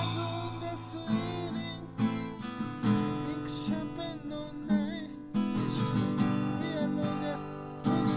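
Acoustic guitar strummed about once a second, with a melody line sliding up and down in pitch over the chords.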